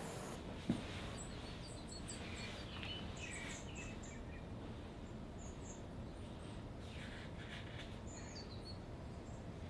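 Small birds chirping in short scattered calls over a steady low background rumble, with one short knock about a second in.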